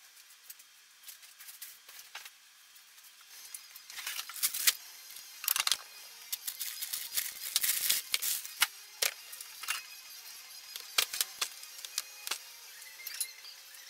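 Hand tools and metal parts clinking and clattering during suspension work: a run of sharp, irregular metallic clicks and knocks, starting about four seconds in and thinning out near the end.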